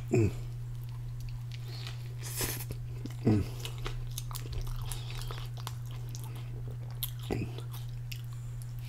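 Close-miked biting and chewing of a soft meat-and-vegetable donair wrap, with wet mouth smacks and clicks. Three short falling tones are the loudest sounds: one just after the start, one about a third of the way in and one near three quarters through. A steady low hum runs underneath.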